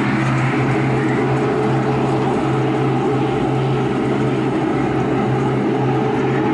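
HO-scale model train running along its track, heard close up from a camera riding on it: a steady electric-motor hum with the rolling noise of wheels on rails.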